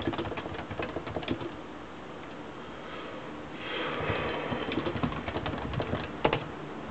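Typing on a Realforce Tenkeyless keyboard with Topre capacitive switches: quick runs of keystrokes, a pause in the middle, then more keystrokes ending with one sharper, louder strike near the end.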